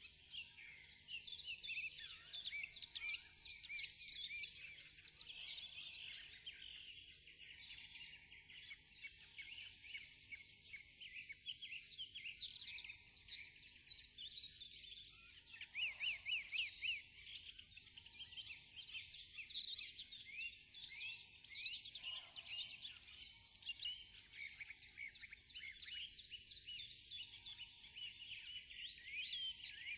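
A chorus of many birds chirping and trilling at once, quick high chirps overlapping densely.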